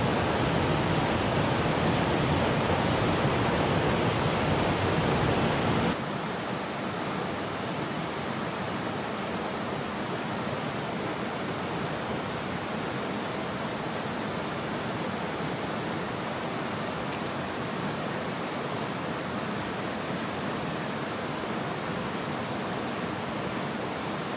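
Steady rushing of river water. About six seconds in it steps down abruptly to a lower, even level.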